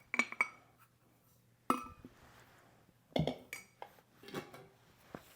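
Kitchen dishes and utensils clinking: a few short knocks of a measuring cup or spoon against a mixing bowl, each ringing briefly, while sugar is added. They come in small clusters at the start, just before the 2-second mark, a little after 3 seconds, and once or twice near the end.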